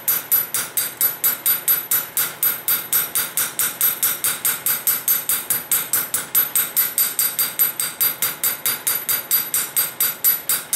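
A reground ball peen hammer, used as a texturing tool, tapping a piece of 14-gauge sheet steel on an anvil, pressing line texture into it. Quick, even strikes at about four to five a second, each with a bright metallic ring, stopping at the very end.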